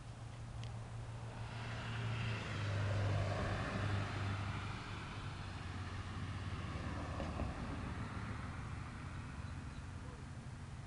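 A vehicle passing by: a swell of noise that builds over the first couple of seconds, peaks about three to four seconds in, then slowly fades, over a steady low hum.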